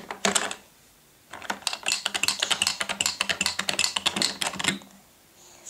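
Plastic toy horse with a rider figure rolling down a plastic ramp, its wheels clattering in a fast run of clicks lasting about three seconds.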